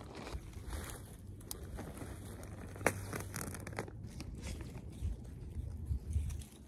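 Rustling and crinkling from hands working at a garden bed, with scattered small clicks and one sharp snap about three seconds in.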